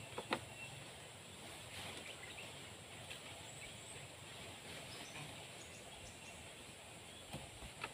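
Faint outdoor ambience with a steady hiss and no engine running, with a sharp knock just after the start and a few small clicks near the end.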